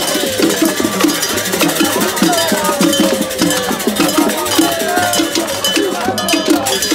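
Traditional percussion with metal bells struck in a fast, steady rhythm over a drum beat.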